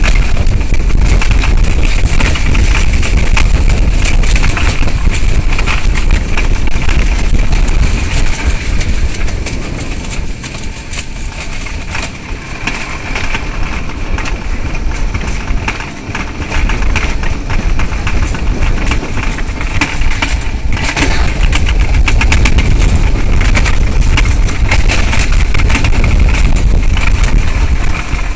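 Alpine coaster cart running at speed on tubular steel rails: a loud, continuous wheel rumble and rattle with wind rushing over the microphone. It eases for a few seconds near the middle, then picks up again.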